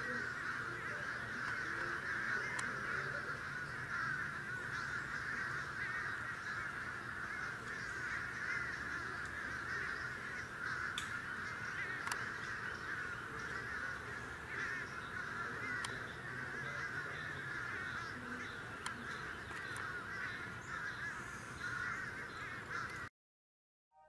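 A huge flock of crows cawing overhead, their many calls blending into one dense, unbroken chorus. It cuts off suddenly about a second before the end.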